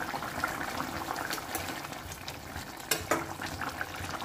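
Watery fish curry simmering in a metal kadai, bubbling with small crackles, while a steel spoon stirs it. About three seconds in, the spoon knocks once against the pan with a short ring.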